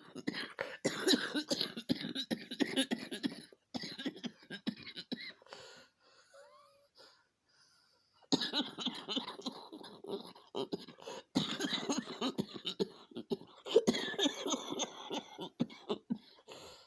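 A woman in a coughing fit brought on by jogging: rapid, repeated coughs in two long runs, with a quieter stretch of about two seconds in the middle.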